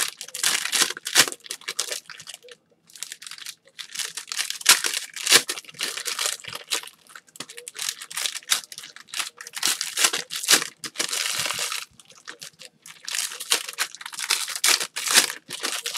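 Foil wrappers of Panini Prizm basketball card packs being torn open and crinkled by hand: a run of rips and rustles broken by short pauses.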